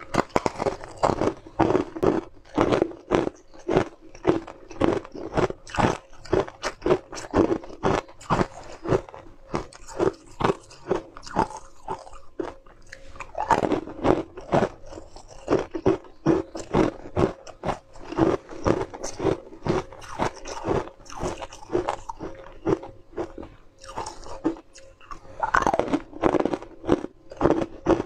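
Frozen ice cubes being bitten and chewed: a steady run of sharp, icy crunches, a couple a second, with brief lulls between mouthfuls.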